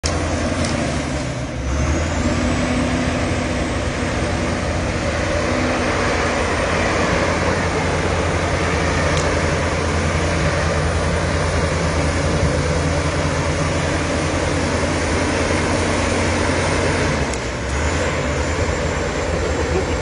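Diesel engine of a 14. Oktobar TG 120 crawler bulldozer running hard as its blade pushes a heap of soil, the sound dipping briefly about a second and a half in and again near the end.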